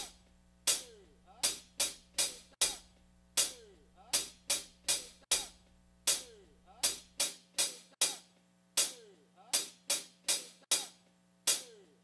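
Recorded drum-kit strikes, cymbal and drum hits about two a second in an uneven pattern, each ringing briefly with a tone that slides down in pitch. The recording is played with a high-pass filter from 100 Hz, so it lacks body; the faint deepest bass drops away about seven seconds in.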